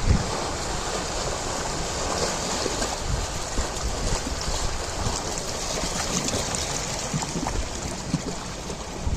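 Ocean surf: a steady, continuous wash of waves with a low rumble underneath and no single standout crash.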